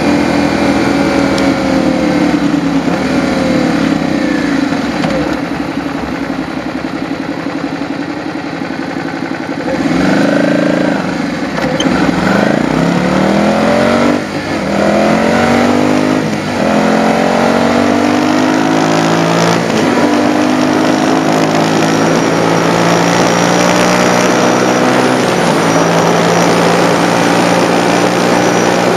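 Motorcycle engine heard from the saddle: running steadily, easing off for several seconds, then accelerating with the pitch climbing and dropping back about three times as it shifts up through the gears, before settling into a steady cruise.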